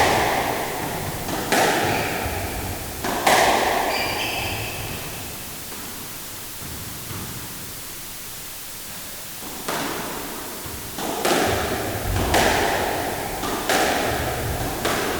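Sports practice in an indoor gym: hard ball impacts echoing through the hall, a few at first and then, after a quiet gap of several seconds, a quicker run of them. There is a brief high squeak about four seconds in.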